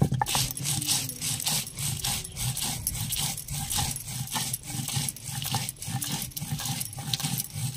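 Stone roller of a sil-batta grinding slab being rolled back and forth over chillies, garlic and whole spices, a steady rhythm of scraping, crunching strokes, a few a second. The slab rocks a little under the strokes.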